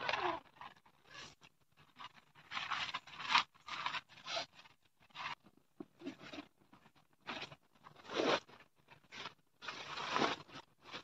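Foam sleeping mat and nylon dome-tent fabric rustling and scraping as the mat is folded and pushed in through the tent door, in irregular short bursts with brief pauses between them.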